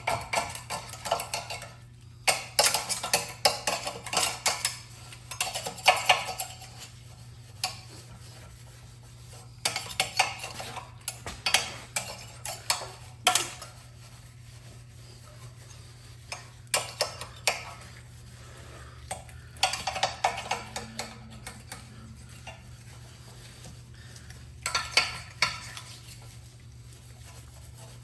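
Small metal parts and hand tools clinking and clattering in bursts of sharp clicks, with short quiet pauses between the bursts.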